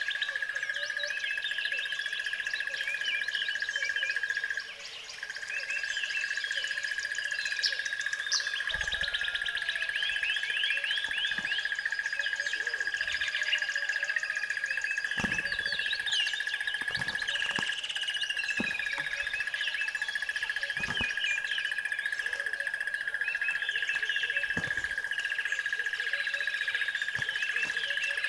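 Many birds chirping and calling over a steady high whine that holds one pitch and breaks off briefly about five seconds in, with a few faint low knocks.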